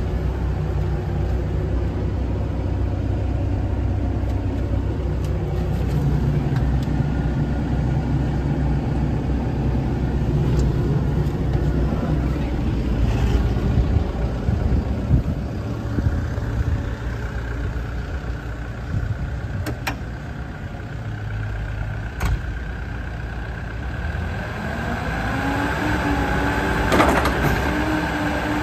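JCB 85Z-2 midi excavator's diesel engine running steadily at idle, with two sharp clicks about two-thirds of the way in. Near the end a rising whine joins the engine as the hydraulics move the boom and arm.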